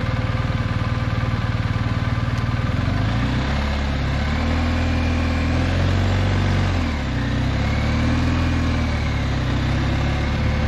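BMW R1250GSA boxer twin engine ticking over at low revs, then pulling away about three seconds in. The engine note rises, drops briefly at a gear change about seven seconds in, and climbs again.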